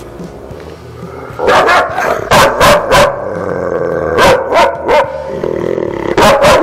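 Large dog barking in short clusters of two or three loud barks, starting about a second and a half in: an agitated, stressed guard dog barking at the handler through the kennel gate.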